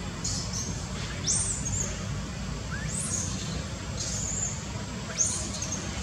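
Five short, high-pitched chirps a second or two apart, some sweeping sharply upward, over a steady low hum.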